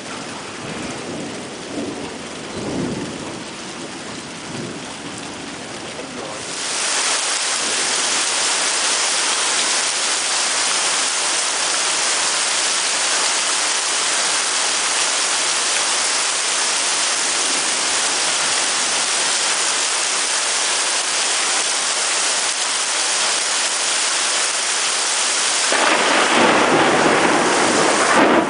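Heavy thunderstorm downpour: rain pouring down with low rumbles of thunder in the first few seconds. About six seconds in, the rain suddenly becomes a much louder, steady hiss, and it grows louder and fuller again near the end.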